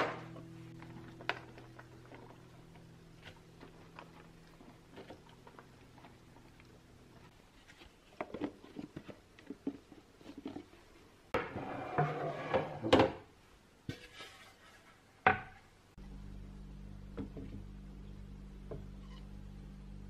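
Kitchen handling sounds of a plastic food storage container: its lid is worked on and clicks shut with a few sharp snaps. Later come light knocks on a wooden cutting board. A low steady hum sits underneath.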